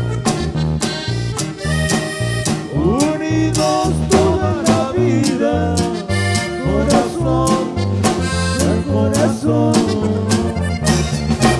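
Band music led by accordion, with bass and a steady drum beat.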